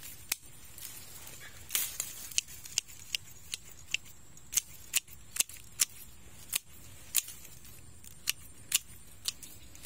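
Hand pruning shears snipping twigs and small branches, about fifteen sharp clicks at irregular intervals.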